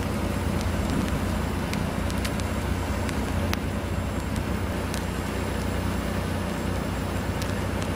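Ice-storm ambience: sparse faint ticks and crackles of freezing rain and ice on glazed branches and pavement, over a steady low hum.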